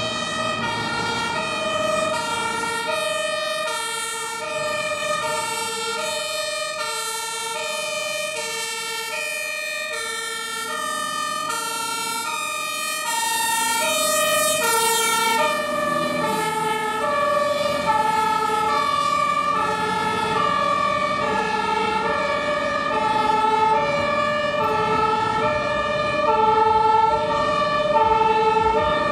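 Two-tone sirens of German fire engines, stepping between a high and a low note about every three quarters of a second. For the first half two sirens sound together out of step; from about halfway one siren grows louder as its truck comes close. Road traffic and truck engine noise run underneath.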